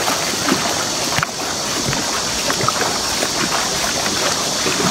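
Steady rushing of river water over a weir, an even hiss that dips briefly a little over a second in.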